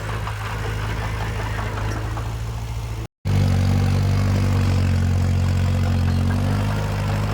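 Heavy construction-machine diesel engine running steadily at a low, even speed. The sound cuts out briefly about three seconds in and resumes slightly louder.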